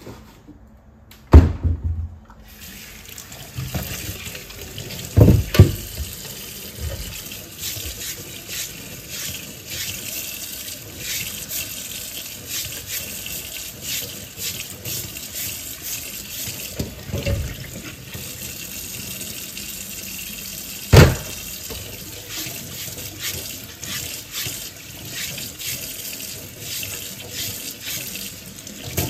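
Kitchen tap running into a stainless steel sink while an ear of corn is scrubbed under the stream with a bristle brush. The water comes on about two seconds in, just after a loud knock, and a few more sharp knocks fall against the sink along the way.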